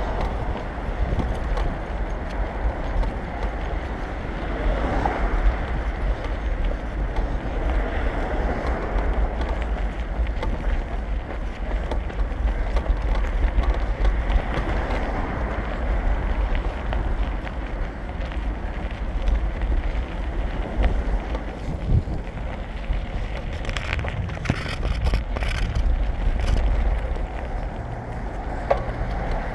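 Wind rumbling and buffeting on a moving GoPro's microphone, over a steady hiss of traffic from the road alongside.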